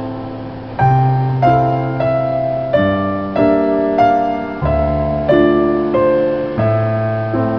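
Slow, gentle piano music: single notes and chords struck about every second, each ringing and fading before the next.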